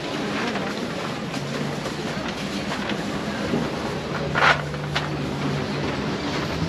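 Steady outdoor street ambience with a low motor hum that comes in about four seconds in, and one short sharp knock just after.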